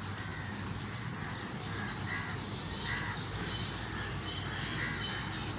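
Crows cawing several times, short calls repeating from about two seconds in, over steady low outdoor background noise.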